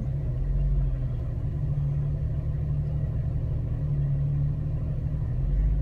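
Vehicle engine running steadily at low revs, a constant low hum with no revving.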